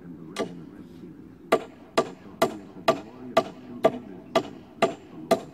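Claw hammer driving nails into a wooden stud wall frame: one strike, a pause, then a steady run of strikes about two a second, each with a short metallic ring.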